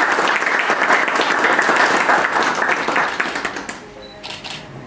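A small group applauding, the clapping dying away about three and a half seconds in, followed by a few light clicks.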